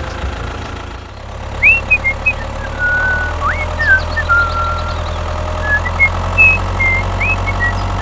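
A small engine running steadily at idle, with short bird chirps over it.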